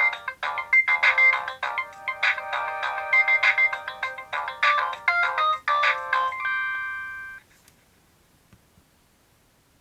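Nokia 3230 mobile phone playing a polyphonic ringtone: a fast run of short notes that ends on a held chord about six and a half seconds in, cut off about a second later, followed by near silence.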